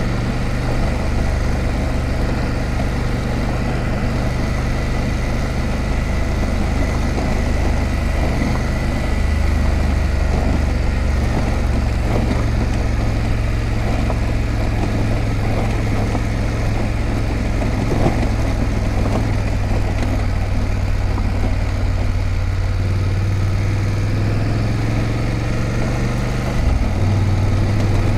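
BMW F850GS motorcycle's parallel-twin engine running at a steady pace while riding on a dirt road, with an even rushing noise of wind and tyres over it. The engine note shifts near the end.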